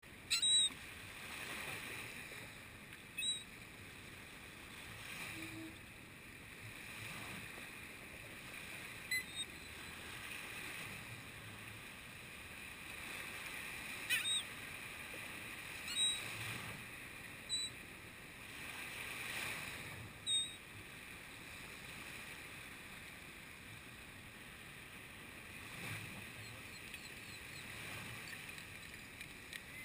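Small surf breaking and washing up a sandy beach, swelling and fading every few seconds. Several brief, sharp high-pitched sounds stand out above it, louder than the waves.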